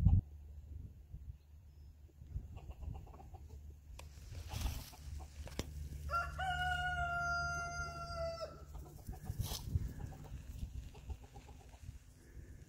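A rooster crows once, about six seconds in: one long call held almost level for over two seconds, dropping slightly as it ends. Two short bursts of noise come before and after it.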